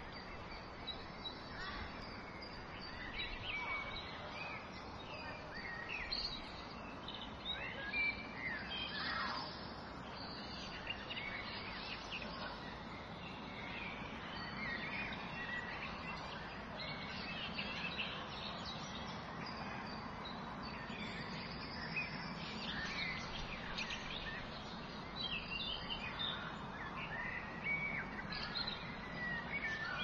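Birds chirping and whistling: many short, scattered calls over a steady background hiss of ambient noise.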